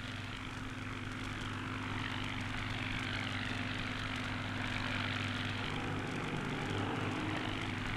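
Steady drone of propeller aircraft engines, with an even low hum under a rushing noise, unchanging throughout.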